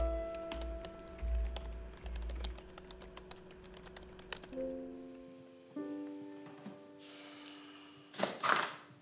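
Rapid typing on a Dell laptop keyboard, many light key clicks for about the first five seconds, over slow background music of held notes. A short breathy rush of noise comes near the end.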